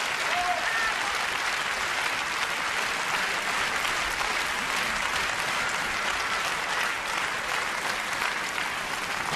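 Large concert-hall audience applauding steadily with dense, even clapping.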